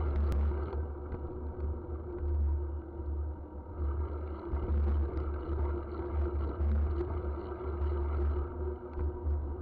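Wind buffeting the microphone of a handlebar-mounted camera as a mountain bike rolls down a dirt road: an uneven, gusting low rumble over the steady noise of the tyres on the dirt.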